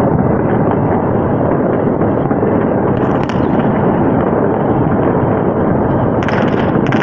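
Many distant fireworks going off together, blending into a continuous rumble of bangs, with a sharper crackle about three seconds in and a quick run of crackling bursts near the end.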